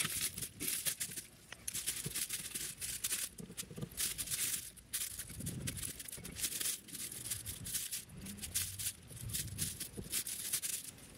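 Irregular rustling and scraping from hands working inside the travel trailer's underbelly, with rubbing on the underbelly covering in short uneven bursts.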